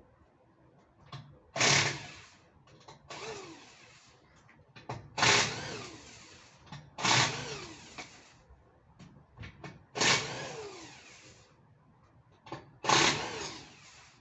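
Impact wrench running lug nuts in six short bursts of about a second each, the pitch dropping during each burst, with small clicks between them.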